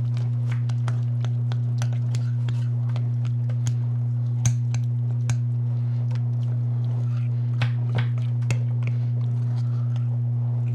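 A spoon stirring thick chocolate fudge-bar filling in a glass bowl, with irregular clicks and taps of the spoon against the glass. A steady low hum runs underneath and is the loudest thing throughout.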